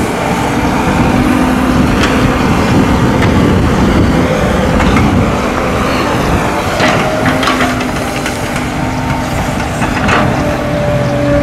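Heavy diesel machinery running steadily: the engines of an excavator and waiting dump trucks, with a few short sharp clanks or hisses.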